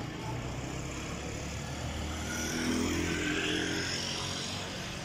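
Street traffic: car and motorcycle engines running, with a vehicle passing closer and a little louder about two to three seconds in.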